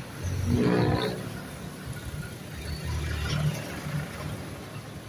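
Road traffic passing close: a vehicle engine revs loudly about half a second in, then a passing jeepney's engine rumbles by over the steady traffic noise.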